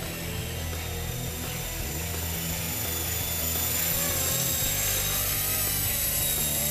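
Small electric radio-controlled helicopter, an Esky Honey Bee V2, flying: a high steady whine from its motor, gears and rotor that drifts slightly in pitch and grows louder about halfway through.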